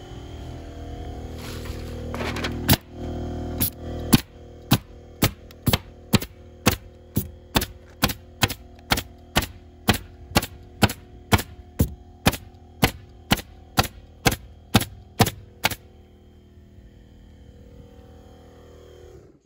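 Arrow pneumatic stapler firing T50 staples into house wrap in rapid succession, about two sharp shots a second, stopping about three-quarters of the way through. The owner finds this stapler misfiring often.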